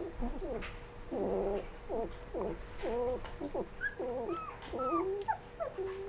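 Rough collie puppies whining and grumbling while eating from a shared bowl: a quick run of short calls, some sliding in pitch, a few higher and sharper like little yips.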